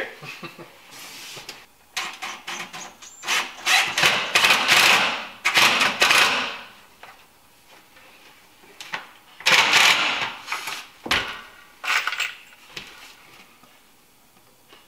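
Power drill driving pocket-hole screws into a 2x4 bed frame, in several short runs, with a single knock of wood about eleven seconds in.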